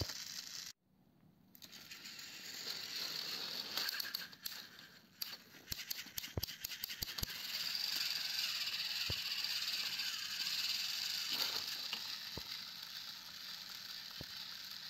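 Small electric motors of battery-powered plastic toy train engines whirring and rattling as the engines drive against each other on plastic track. The whir starts after a brief gap about a second in and runs steadily, with a burst of sharp plastic clicks in the middle.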